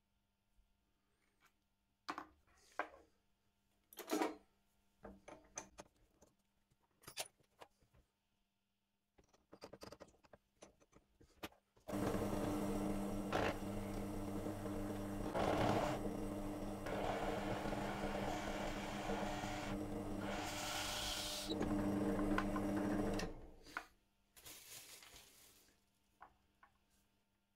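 Scattered knocks and clicks of wooden parts and tools being handled. Then an electric power tool runs steadily on the workpiece for about eleven seconds and stops.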